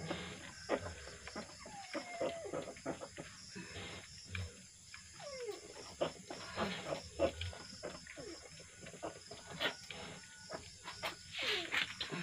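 Newborn piglets squealing in many short, falling cries, with scattered clicks and rustles of handling.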